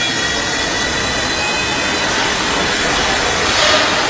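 Radio-controlled stunt helicopter in flight: a steady rushing whir of its spinning rotors, briefly louder near the end.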